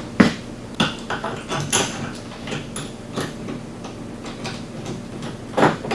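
Scattered clicks and knocks of screws, brackets and a plastic cargo box being handled during assembly, with a louder knock near the end.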